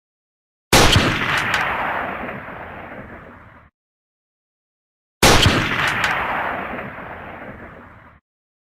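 Two M24 sniper rifle shots about four and a half seconds apart, each a sharp crack followed by a long rolling tail that fades over about three seconds and then cuts off abruptly.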